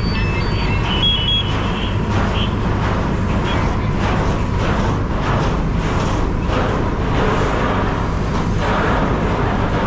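Fire truck engine running steadily with a low rumble. An alternating two-tone electronic beeping ends within the first second.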